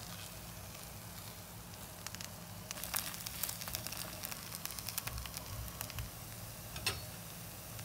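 A bánh xèo (rice-flour crepe) with its filling frying in oil in a hot pan: a soft sizzle with scattered crackles and pops, busiest through the middle few seconds.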